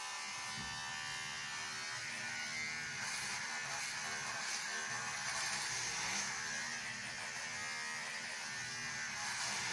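Handheld electric hair trimmer buzzing steadily while cutting hair, its pitch wavering slightly partway through.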